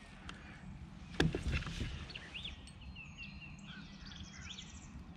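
Small birds calling in short chirps and whistles, with a fast high trill near the end. About a second in, a sharp knock against the kayak is followed by brief handling noise as gear is moved in the boat.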